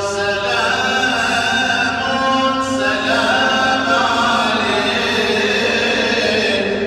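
Melodic religious chanting by an unaccompanied voice, in long held notes that bend slowly in pitch.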